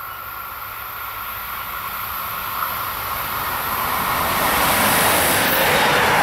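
Train approaching on the line: rolling rail noise with a steady high whine, growing steadily louder.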